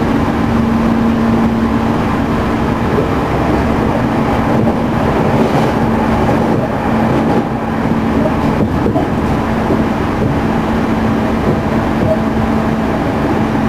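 Running noise inside a JR Central 211 series EMU motor car: a steady hum over the rumble of wheels on rail. The car is one known for an abnormal, very loud noise from its internal-fan traction motors.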